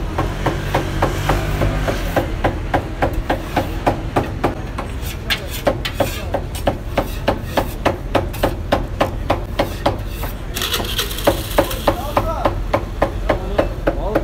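Cook's large knife chopping grilled kokoreç on a wooden cutting board: a steady run of sharp knocks, about three to four a second. A brief hiss joins about ten seconds in.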